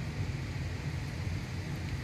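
Steady low background hum with no distinct events; the cats make no audible sound.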